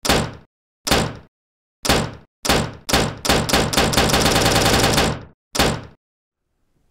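Edited-in impact sound effects, one hard thud for each comment card landing on screen. The hits start a little under a second apart, then quicken into a rapid volley that runs together for about two seconds, and one last thud follows, with dead silence between them.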